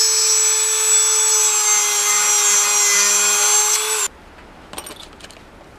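Small handheld rotary tool running at speed with a steady high whine while drilling a hole through a thin steel feeler-gauge blade clamped in a vise; it stops abruptly about four seconds in. A few faint clicks follow.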